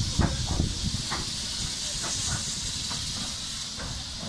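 Steady hiss of escaping steam from LMS 'Jinty' Fowler Class 3F 0-6-0 tank engine 47406, as the locomotive moves off.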